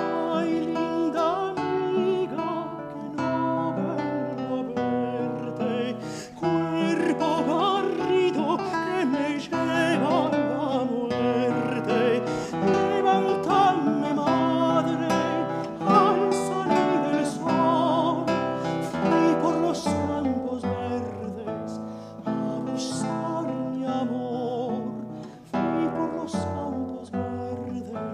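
A countertenor singing a Sephardic song with vibrato, accompanied by a fingerpicked classical guitar.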